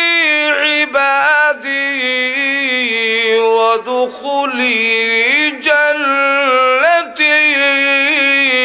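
A man reciting Quranic verses in Arabic as a slow melodic chant, holding long notes and winding them up and down, with short breaks for breath; the line closes on 'jannati' near the end.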